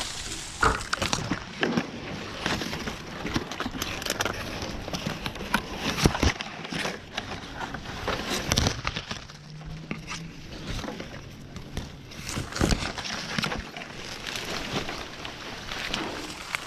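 Dry palm fronds crackling and rustling, with irregular sharp snaps and knocks.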